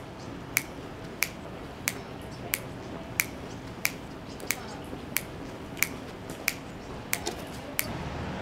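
Finger snaps keeping a steady beat, about three every two seconds, as the rhythm of a song between its sung lines, with a quick double snap near the end.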